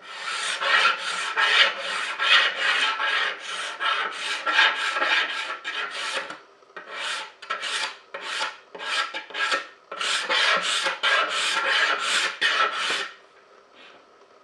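A hand tool worked over wood in quick, even rasping strokes, about three a second, with a short break about six seconds in and a slower spell after it, stopping about a second before the end.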